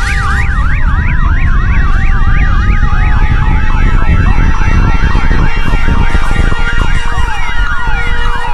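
Several emergency sirens sounding at once, one in a fast yelp and others in slower rising and falling wails, over a loud, continuous deep rumble.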